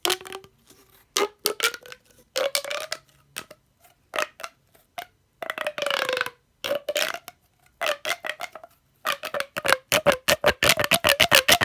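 Corrugated plastic pop tubes being stretched out and pushed back in: the ribs snap open and shut in runs of rapid clicks with a wavering pitch, in bursts with short pauses. Near the end the clicks come in a fast, even string.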